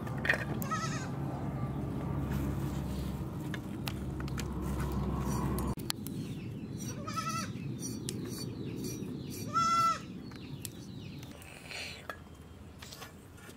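Goats bleating a few times, the loudest bleat about ten seconds in, over a steady low hum that cuts off suddenly about six seconds in. Near the start, pieces of taro stem clatter as they drop into an aluminium pot.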